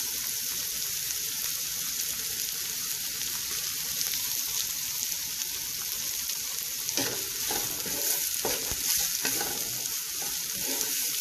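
Mixed vegetables sizzling in ghee in a granite-coated frying pan. From about seven seconds in, a spatula stirs the vegetables, knocking and scraping against the pan in irregular strokes over the sizzle.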